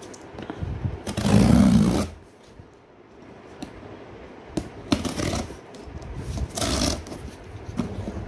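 Packing tape being peeled off a cardboard parcel in several pulls, each a noisy rip: the longest and loudest about a second in, shorter ones around five and six and a half seconds in, with small clicks between.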